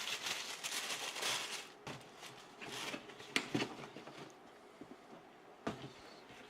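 Shoe packaging being handled as a pair of soccer cleats is lifted out of a cardboard shoebox. There are bursts of rustling in the first couple of seconds and again around three seconds in, and a few light knocks.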